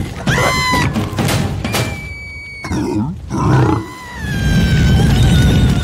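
Cartoon sound effects of a creature grunting and growling, with a low rumble strongest in the second half, over film-score music with high held notes, one of them slowly sliding down in pitch near the end.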